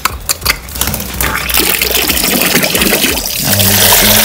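Water from a plastic tap splashing into a plastic mug. After a few spatters it becomes a steady, louder rush about a second and a half in as the stream fills the mug.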